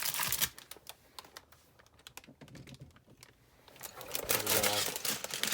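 Plastic bags of LEGO pieces being handled. A short burst of crinkling is followed by a quieter stretch of light clicks and taps, and the crinkling comes back near the end.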